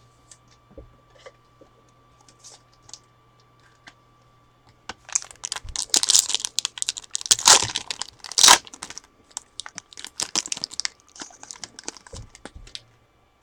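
Faint handling clicks, then a trading-card pack wrapper torn open and crinkled for several seconds, starting about five seconds in, with the loudest rips near the middle.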